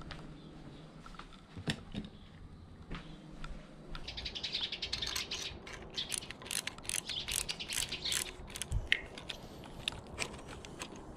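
Hand tool working the bolts on an electric scooter's handlebar clamp: a quick run of sharp metal clicks starting about four seconds in and lasting several seconds, with a few scattered clicks before it.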